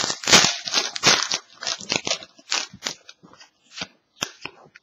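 Hockey trading cards being handled and flipped through by hand: a quick run of crisp snaps and rustles as cards slide off one another, dense at first and thinning out after about two seconds.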